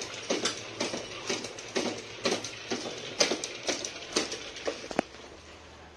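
Belgian Malinois panting in a steady rhythm, about two breaths a second, keyed up before a walk. A single sharp click comes about five seconds in.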